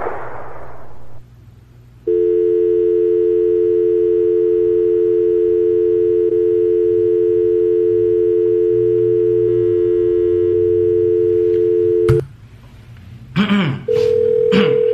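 Telephone dial tone, a steady two-note hum, running for about ten seconds after the call drops, then cut off with a click. A second, single-note line tone starts near the end.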